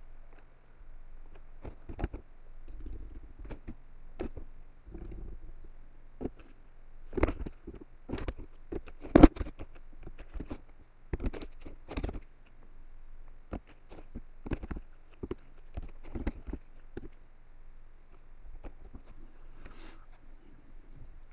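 Keystrokes on a computer keyboard: irregular clicks, a few at a time with short pauses between.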